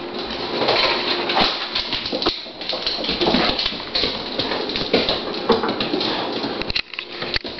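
A Doberman racing around on a hard floor, claws and paws clattering in quick, irregular footfalls.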